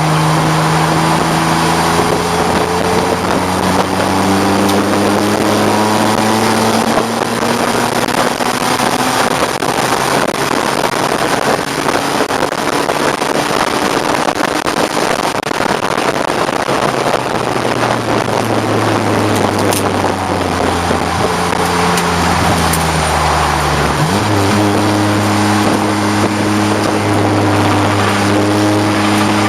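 1989 BMW 535i race car's straight-six engine under racing load: the revs climb slowly for several seconds, later fall away, then jump up sharply about 24 seconds in, as on a downshift, all over a loud rush of wind noise.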